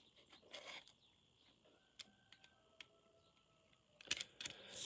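Near silence with faint, scattered clicks and taps of the small plastic parts of a Logitech M185 wireless mouse being handled, and a cluster of sharper clicks near the end.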